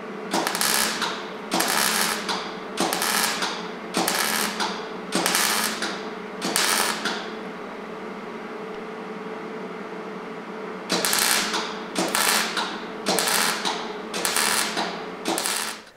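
MIG (wire-feed) welder laying a series of short tack welds on sheet steel: eleven brief crackling bursts, six in a row, a pause of a few seconds, then five more. This is stitch-tacking a lip onto a rusted truck door frame with many small spot welds.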